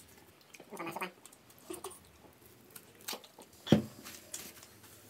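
Pizza being chewed close to the microphone, with soft mouth clicks and smacks, a few short high squeaky sounds, and one sharp knock a little before four seconds in.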